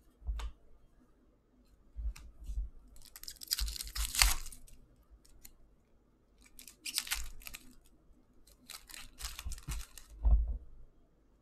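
A trading-card pack's wrapper torn open and crumpled by hand, in several crackling bursts, the loudest about four seconds in. There are low thumps as the cards are handled, the strongest just before the end.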